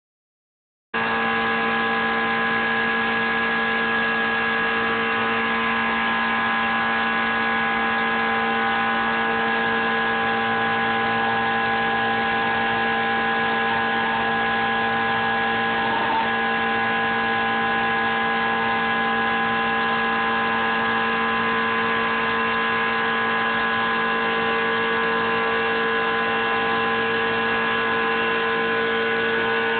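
ShopBot CNC router running: a steady motor whine over a hiss, unchanging in pitch and level, starting about a second in.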